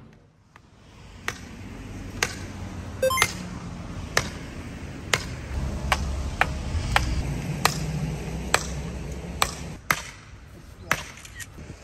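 Hammer blows on wood, about one a second, as a wooden ceremonial stand and its stakes are put together.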